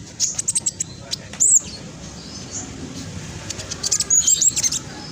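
Black sunbird singing: quick, high-pitched chattering notes in fast, dense runs, with a louder arched whistle about one and a half seconds in and a rapid burst of notes near the end.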